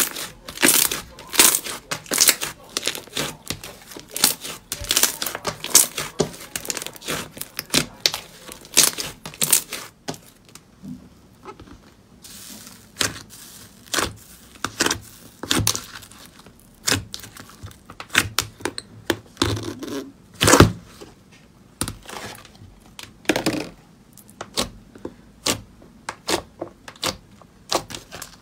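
Slime being squeezed, poked and pressed by fingers, giving sharp sticky pops and clicks at irregular intervals. They come thick and fast for the first ten seconds or so, then more sparsely.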